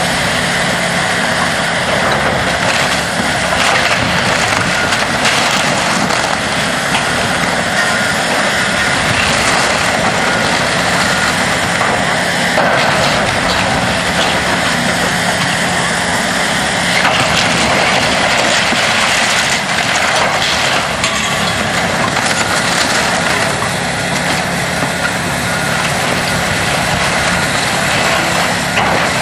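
Heavy demolition machine's engine running steadily under load, with cracking and crunching of wood and debris as the building is torn down.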